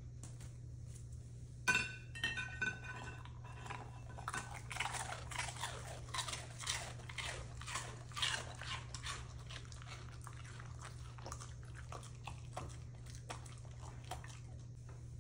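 A dog crunching and chewing a coconut roll: a sharp crack about two seconds in, then a run of crunches, about two a second, that fade out over the last few seconds.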